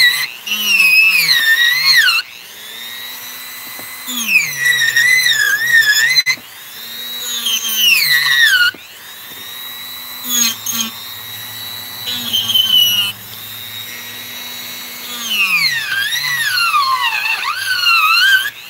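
Dremel rotary tool carving wood. Its whine sweeps down and up in pitch during loud spells of a couple of seconds, with steadier, quieter running in between.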